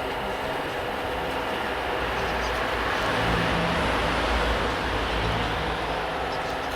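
Motors and hydraulics of RC model construction machines running: a steady mechanical whir over a low hum, swelling a little louder about three to five seconds in.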